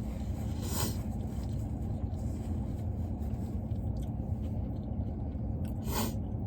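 Street tacos being eaten over a steady low rumble, with two short crisp crunching or rustling noises, one about a second in and one near the end.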